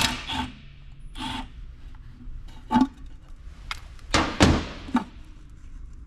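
Metal knocks and clanks of a tool against a differential's housing cover as it is broken loose from the housing, about five irregular strikes with the loudest a little past four seconds in.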